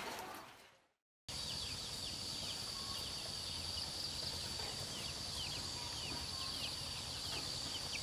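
Countryside ambience: a steady high-pitched drone with short chirps repeating about three times a second. It starts after the earlier sound fades out to a moment of silence about a second in.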